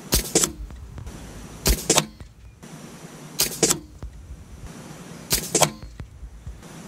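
Air Arms XTi-50 .177 pre-charged pneumatic air rifle fired four times, about every second and a half to two seconds. Each shot is a short sharp crack with a second crack close behind.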